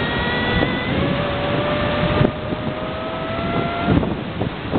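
A motor vehicle's engine, its tone rising steadily as it speeds up, over a rush of wind noise. The sound changes abruptly about two seconds in, and another rising engine tone follows.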